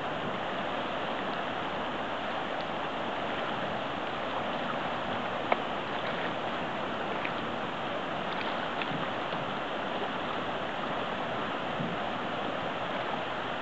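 Steady rushing of the Smith River's fast, riffling current, with one brief sharp click about five and a half seconds in.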